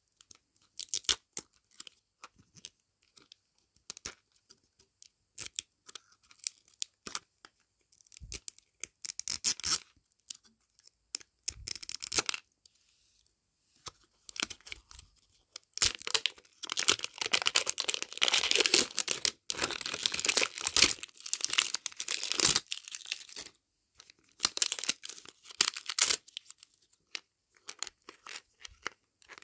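Printed plastic wrapper being picked at and peeled off a plastic capsule ball: scattered short crinkles and small rips, then a long stretch of continuous tearing about halfway through and a shorter one a few seconds later.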